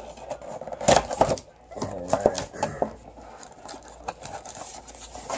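A cardboard hobby box being opened and its foil-wrapped card packs handled: a few sharp clicks and taps, loudest about a second in, with light rustling of packaging.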